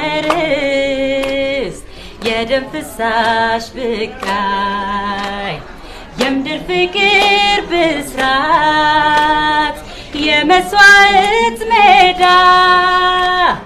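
Voices singing a patriotic song in long held phrases with vibrato, a female voice to the fore, with short breaks between phrases.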